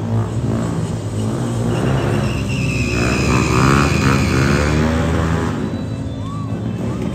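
Motorcycle engines running, with music mixed in.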